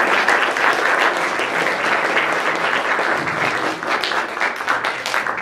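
Audience applauding: a dense, steady clatter of many people's hand claps that thins slightly near the end.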